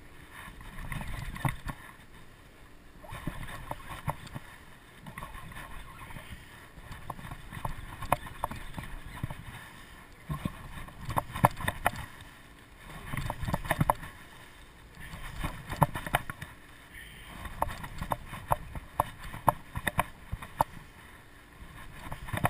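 Sea water slapping and sloshing against the side of a small boat in surges every two to three seconds, each surge with sharp slaps and splashes.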